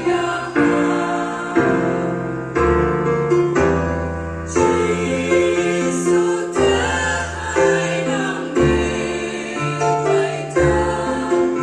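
A women's vocal group singing a gospel song in harmony through microphones, over keyboard accompaniment with held low notes that change every second or so.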